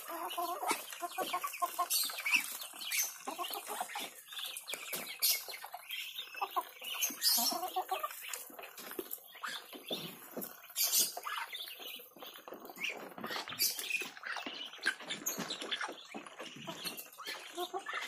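A flock of chickens and Muscovy ducks feeding: chickens clucking among many quick pecking clicks at the feed.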